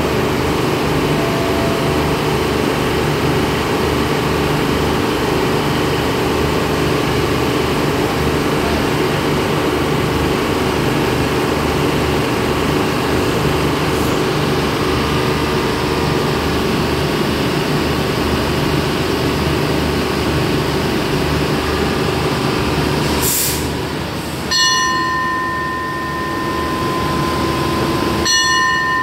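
Diesel express railcar idling at the platform, a steady low engine drone. About 23 seconds in comes a short hiss of air, then a steady high tone sounds twice near the end.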